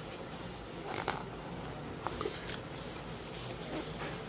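Pages of a thick paperback book being leafed through by hand: soft paper rubbing and rustling, with a few brief crisp page flicks.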